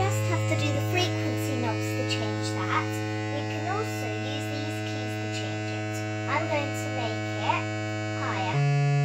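Moog Mother-32 synthesizer oscillator holding a steady low buzzy tone, which jumps to a higher pitch near the end.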